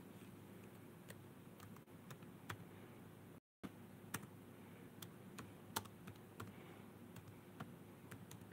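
Laptop keyboard being typed on: faint, irregular key clicks over a low steady hum, with a brief drop-out in the sound about three and a half seconds in.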